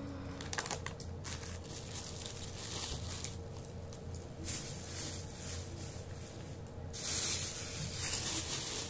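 Plastic grocery packaging rustling and crinkling as it is handled, louder near the end, over a faint steady hum.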